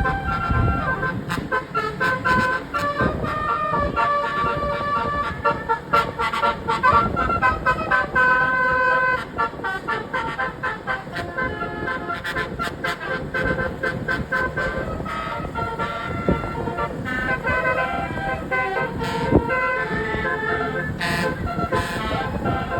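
Tourist bus's multi-note telolet horn playing a quick tune of stepped pitches, note after note, with a few voices in the background.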